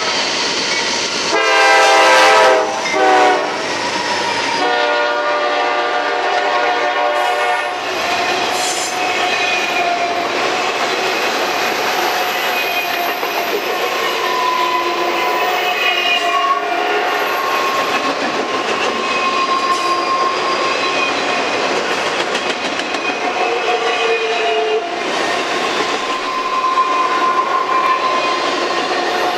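Norfolk Southern GE C40-9W diesel locomotives sounding their air horn in the grade-crossing pattern: a long blast, a short one, then another long one. Then a long train of autorack cars rolls past with a steady clickety-clack of wheels over the rail joints and occasional brief squeals from the wheels on the curve.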